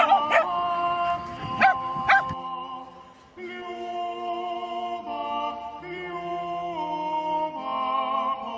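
Background music with a dog, a Shetland sheepdog, barking a few sharp times in the first two seconds. The music stops about two and a half seconds in, and after a short pause slow music of long held chords begins.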